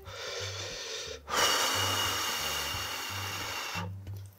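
A man blowing on a chopstick-lift of hot stew greens to cool them. A softer breath comes first, then a long, louder blow of about two and a half seconds that stops near the end.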